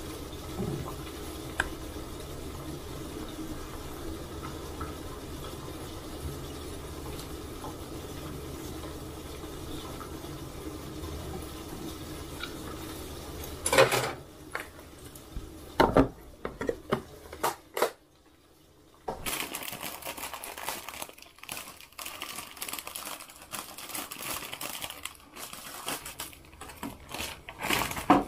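Cooking at the stove: a steady sizzle with a low hum for about the first fourteen seconds. Then a few sharp knocks, a brief pause, and irregular crinkling and rustling with light clicks.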